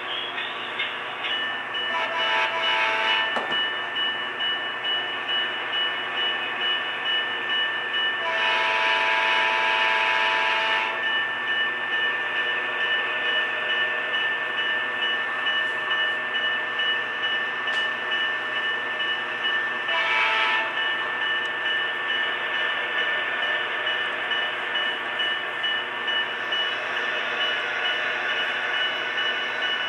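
HO scale model locomotive's onboard sound running steadily, its horn sounding three times: a blast of about a second, then a longer one of over two seconds, then a short one.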